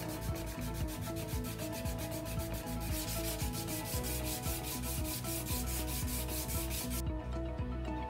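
Wooden lock-pick handle rubbed back and forth on 400-grit sandpaper: quick, even sanding strokes, about five a second, stopping about seven seconds in. Soft background music plays underneath.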